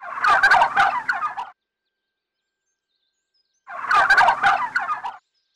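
A bird's gobble, a fast rattling call about a second and a half long, heard twice about four seconds apart. The two calls are alike.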